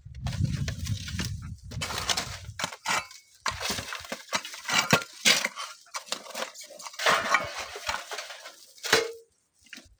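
Sand and stones sliding down a dry sand cliff: a low rumble in the first second or two, then irregular crackling and clattering of falling stones that stops shortly before the end.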